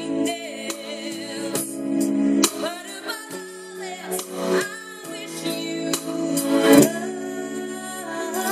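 A female singer performing live over sustained backing chords, her long held notes wavering with vibrato, amplified through a stage PA.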